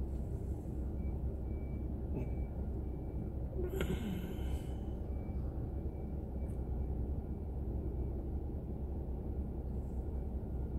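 Car idling at a standstill, heard from inside the cabin as a steady low rumble, with one short hiss about four seconds in.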